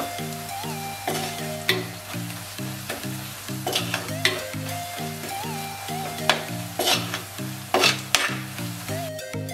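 Onion masala frying in oil in a clay pot, sizzling as a metal spatula stirs and scrapes through it in irregular strokes. Background music with a steady beat runs underneath.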